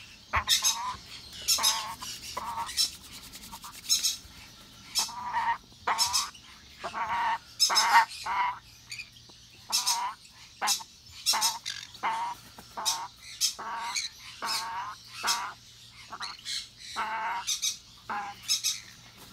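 A young African grey parrot squawking over and over while held wrapped in a towel: short, harsh calls, one or two a second, with brief pauses.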